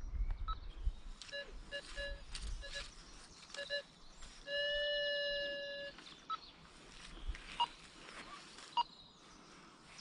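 Go-Find metal detector beeping as it sweeps the ground: several short beeps in the first few seconds, then one long steady tone about halfway through, the loudest sound, and a few faint blips later. A few low handling thumps come in the first second.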